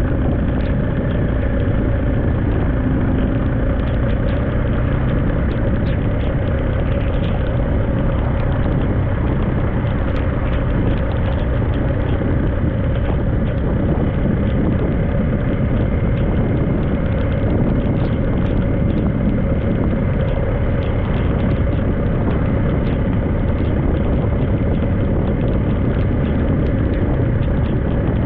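Vehicle engine running at a steady speed on the road, with steady wind and road noise and faint scattered ticks.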